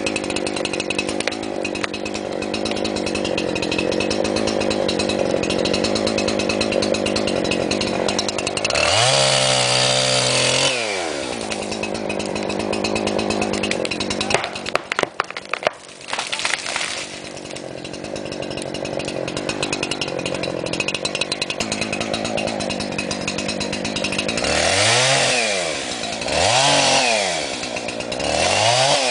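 Husqvarna 372XP 70.7 cc two-stroke chainsaw engine running steadily, then revved up and back down once. It runs on after a brief dropout and is blipped up and down three times near the end.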